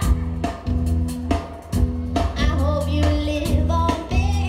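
Live band music over an outdoor PA: a woman singing lead over a steady drum beat, bass and guitar.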